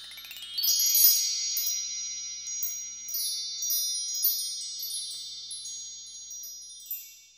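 Shimmering chime sound effect: a quick upward sweep of bell-like tones, then many high tinkling strikes over sustained ringing tones that slowly fade, with a last tinkle near the end.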